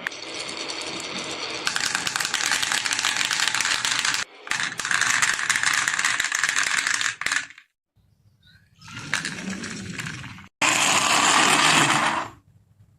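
Marbles rolling and clattering down a HABA marble run: a dense rattle of quick clicks that stops about seven and a half seconds in, followed by a quieter run of rattling and then a short, loud burst near the end.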